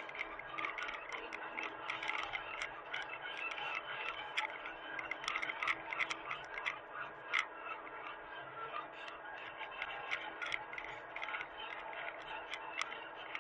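Hitachi mini excavator at work: a steady machine hum under many irregular clicks and clanks.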